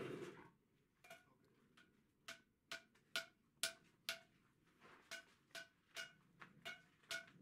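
Blacksmith's hammer striking hot iron on steel: about fifteen light blows, roughly two a second and slightly uneven, each with a short metallic ring at the same pitch, as the trivet's legs are bent and shaped.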